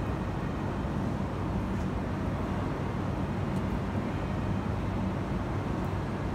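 Steady low rumble of vehicle traffic and running engines, with a faint even hum and no sudden events.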